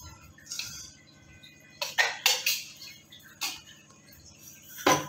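A metal spoon clinking against a steel container and pan as sugar is spooned into an empty non-stick frying pan: about six separate sharp clinks, the loudest near the end.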